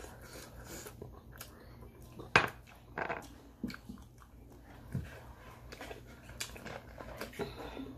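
Sounds of eating at a table: scattered clicks and knocks of a sauce dish and food being handled, the sharpest about two and a half seconds in, with smaller ones around three and five seconds.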